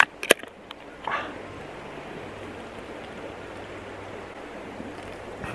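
Steady rush of stream water while a man drinks a can of beer in one go, with a couple of sharp clicks at the start and a short breath about a second in; no distinct gulps stand out over the water.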